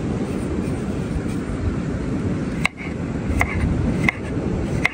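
Steady wind rumble on the microphone. From a little past halfway, four sharp, evenly spaced knife strokes on a cutting board, as vegetables are chopped.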